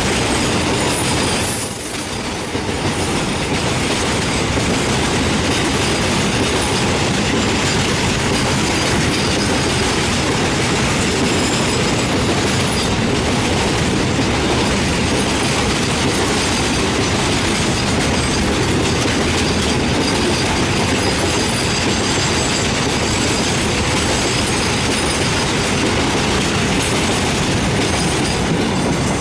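A long container freight train rolling past at speed, its wagon wheels clattering steadily over the rails with a faint high wheel squeal above. It drops briefly about two seconds in, then runs on unbroken.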